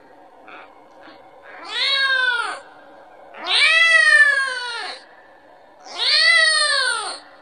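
Kitten meowing, calling for its mother to be fed: three drawn-out calls about two seconds apart, each rising then falling in pitch, the middle one longest.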